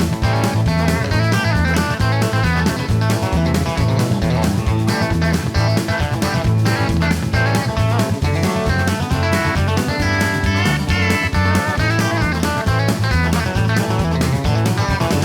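Background music: a guitar-led instrumental with plucked and strummed guitar over a steady beat.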